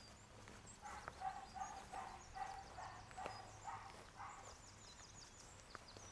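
A dog barking faintly in a quick run of about nine barks, with small birds chirping high in the background.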